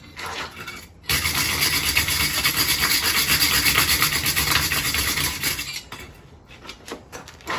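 Wire brush scrubbed hard back and forth over a forged hook on the anvil, a continuous scratchy rasp starting about a second in and giving way to a few lighter strokes near the end. It is the crud being scrubbed off the forged piece.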